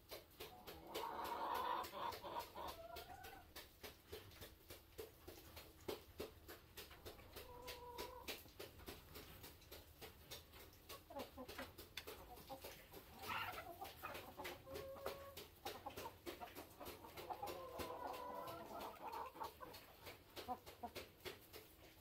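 Chickens in a flock clucking and calling, several separate calls a few seconds apart, over a faint run of small ticks.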